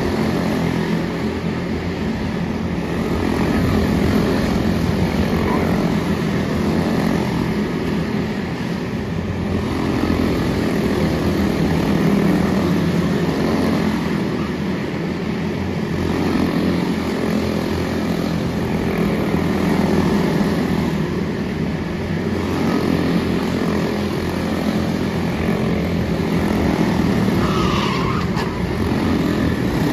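Quarter midget race cars' small single-cylinder Briggs & Stratton Animal engines running at racing speed. The buzz swells and fades about every four seconds as the cars circle the track.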